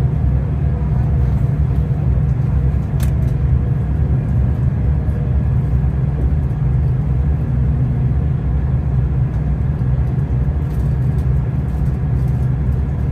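Train running with a steady low rumble, with one sharp click about three seconds in.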